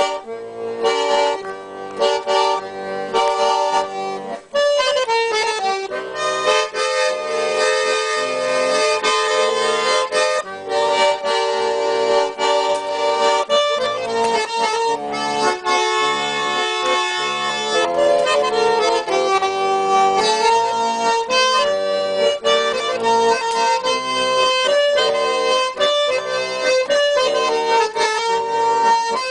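Garmon, a Russian button accordion, playing a melody in sustained chords over a rhythmic backing beat: the instrumental introduction of a chanson song.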